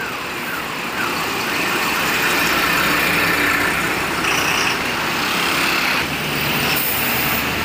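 Tata Signa 2823.T truck's diesel engine running as the truck pulls out and turns, with road noise. It grows louder about a second in.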